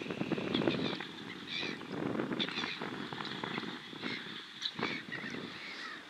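Fendt 720 tractor running as it pulls a five-furrow Kverneland reversible plough through the soil, a rumbling, uneven working noise, with short high chirps repeating over it.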